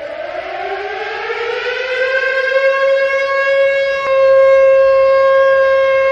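Warning siren winding up: its wail rises in pitch over the first two to three seconds, then holds one steady note and grows louder about four seconds in.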